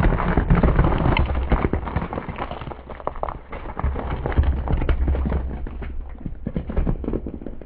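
Gingerbread house and loose gingerbread slabs cracking and crunching under a car tyre: a dense run of snaps that starts suddenly and thins out toward the end, over a low rumble.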